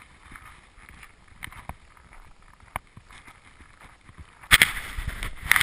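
Rustling and scuffing on a handheld camera's microphone outdoors in the snow: faint scattered clicks, then two loud bursts of rustle, about four and a half and five and a half seconds in.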